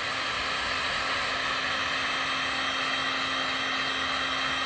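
Heat gun on its highest setting blowing steadily on a heat-shrink solder seal connector: a constant hiss of hot air with a low steady hum underneath.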